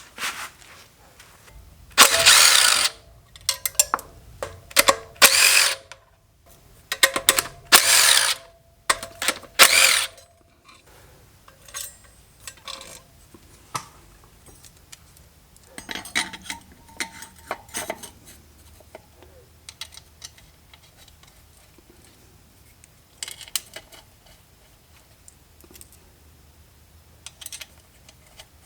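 Ratchet wrench clicking in several loud bursts during the first ten seconds, then lighter scattered clicks and clinks of metal tools.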